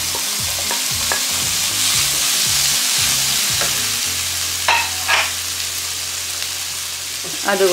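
Chopped tomato and sliced onions frying in hot oil in a non-stick pan, a steady sizzle, with a few knocks and scrapes of a spatula as the tomato goes in during the first few seconds.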